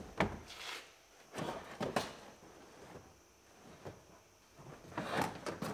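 Molded truck floor carpet being dropped into the cab and pushed into place over its padding: irregular rustling scrapes and a few dull knocks, with a cluster of them near the end.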